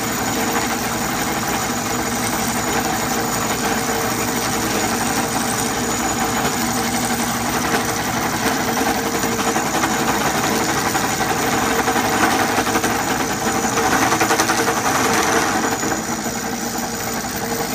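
Craftsman Atlas metal lathe running and turning an aluminium tube, the cutting tool chattering as it feeds in; a steady machine noise that gets louder about three quarters of the way through. The owner thinks the chatter comes from the drive pulleys not being tight on the spindle shaft.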